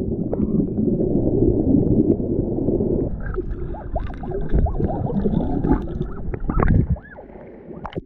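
Stream water heard through an underwater camera: a low rushing noise, then from about three seconds in, bubbling gurgles with many short sliding tones. The sound drops off sharply about a second before the end.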